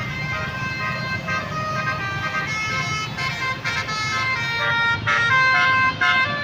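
Bus "telolet" horn: a set of air horns playing a quick tune of changing notes, louder about five seconds in, over the bus engine's steady low rumble.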